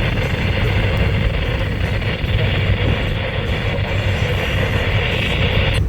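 Steady hiss and rumble of static from a Springfield 91418 weather radio on a weak NOAA Weather Radio signal, with no voice or alarm tone coming through.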